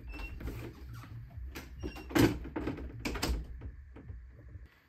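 A bedroom door being pulled open, with knocks and footsteps on a wooden floor as someone walks out; the two loudest knocks come about two seconds in and again a second later.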